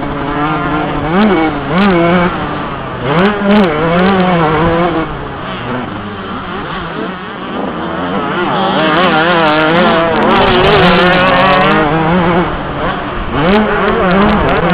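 Yamaha YZ125 two-stroke single-cylinder motocross engine revving hard, its pitch rising and falling again and again. It drops lower about halfway through, then holds a long high-revving run before rising and falling again near the end.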